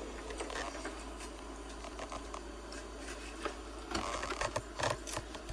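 Shark robot vacuum running: a steady motor hum with scattered clicks and scratchy ticks that cluster about four to five seconds in.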